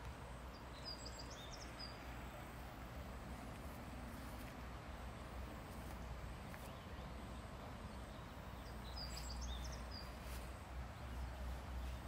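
Outdoor ambience: a steady low rumble, with a small bird chirping briefly twice, once about a second in and again near nine seconds, high-pitched.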